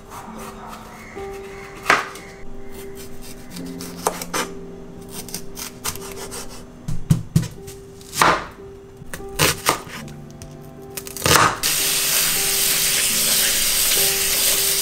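Chef's knife cutting bell pepper and onion on a bamboo cutting board, a series of separate knife strikes on the wood. Near the end a kitchen tap starts running steadily into a stainless steel bowl of spinach leaves. Soft background music plays underneath.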